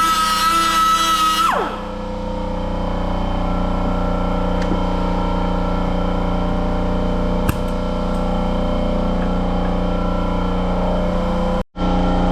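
Handheld cut-off tool running at high speed as it slots a seized screw head, then released about a second and a half in, its whine falling steeply as it spins down. A steady lower hum carries on afterwards.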